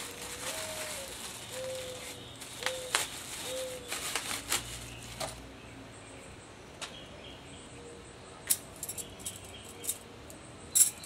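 Metal smoker hooks clinking now and then as they are handled, in sharp scattered clicks. In the first few seconds a bird gives four low cooing notes, the first rising then falling.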